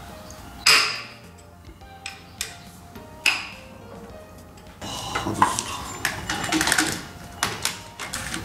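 Metal clinks and knocks of hand tools and engine parts at the supercharger drive belt and pulleys. A sharp knock comes about a second in and another about three seconds in, then a busier run of rapid clicking and rattling from about five to eight seconds in. Background music plays underneath.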